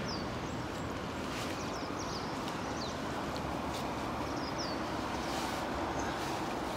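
Steady outdoor background noise, an even rushing hum, with a few short high chirps that fall in pitch and a few faint clicks scattered through it.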